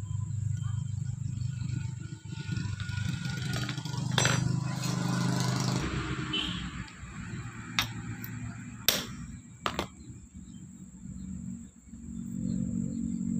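Socket and extension bar clinking against the bolts of a car starter motor as they are undone by hand: a few sharp, separate metal clinks, over a steady low hum.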